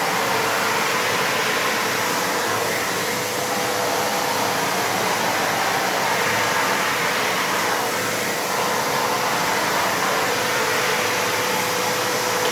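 Kärcher WD 3 wet-and-dry vacuum cleaner's 1000-watt motor running steadily with a constant whine, wet-vacuuming a floor.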